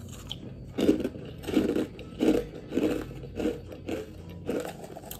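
Crunchy chewing of a spoonful of chocolate-coated Koko Krunch cereal: about seven evenly spaced crunches, starting about a second in.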